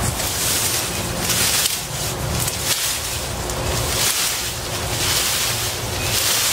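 A large, leafy cut rose limb rustling and scraping as it is dragged out from under the bush, the rustle swelling and fading several times.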